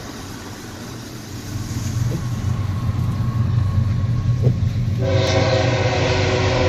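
Freight train's diesel locomotives rumbling and growing louder as they close in. About five seconds in, the lead BNSF ES44C4's Nathan K5HL five-chime air horn starts blowing a held chord.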